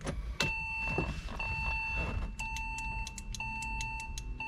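Porsche Boxster 986 dashboard warning beep sounding as the ignition is switched on: one steady tone that starts about half a second in and breaks off briefly about once a second, with a quick run of sharp clicks in the middle.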